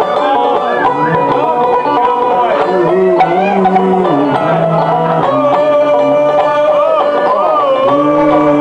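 Two banjos playing a slow country tune live, with long held notes over them that waver and glide in pitch.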